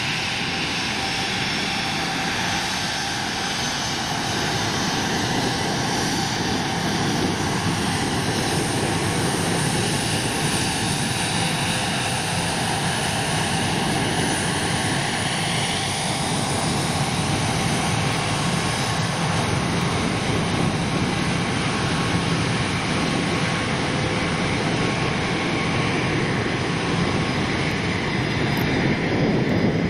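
Bombardier Global business jet's twin rear-mounted turbofans running at taxi power: a steady rush with a whine on top, the whine sliding in pitch as the jet moves past. The sound grows a little louder near the end as the engine exhausts turn toward the listener.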